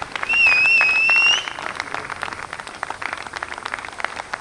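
A crowd clapping, with one loud, slightly rising whistle for about a second near the start.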